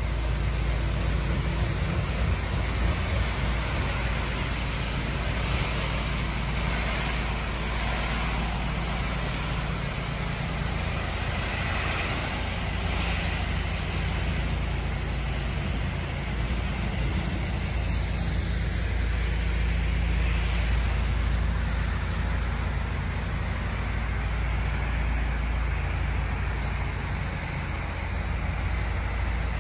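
Pressure washer running steadily: a constant engine drone with the hiss of high-pressure water spraying from the wands.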